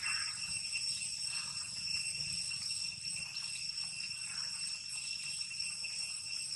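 Steady, high-pitched insect chorus droning in several pitches at once, with a slight pulsing.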